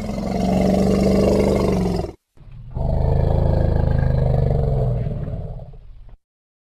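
Elephant giving two long, deep calls, the first lasting about two seconds and the second, after a brief break, about three and a half seconds with a pitch that rises slightly then falls away.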